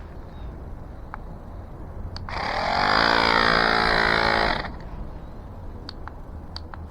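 Portable electric tyre inflator's compressor motor running with a steady buzz for about two and a half seconds, starting a couple of seconds in and stopping abruptly, with a few light clicks of handling around it.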